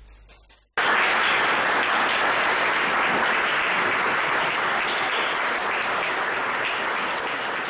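Audience applauding in a hall. The applause cuts in abruptly under a second in, holds steady and eases off slightly toward the end.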